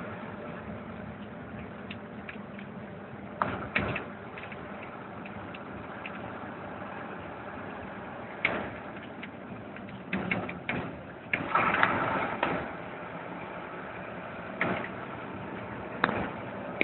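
A car running with steady engine and road hum, broken by a handful of sharp clicks and knocks and a louder rush of noise about two-thirds of the way through.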